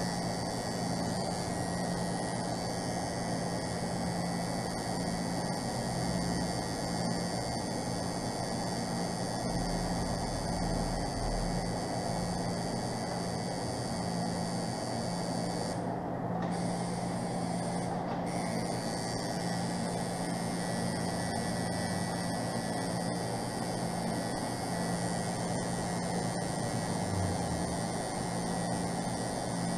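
Tattoo machine running with a steady buzz as its needle lines a tattoo into skin.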